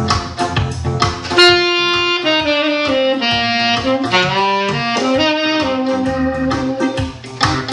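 Saxophone playing a melody over an instrumental backing with guitar. The sax enters about a second and a half in.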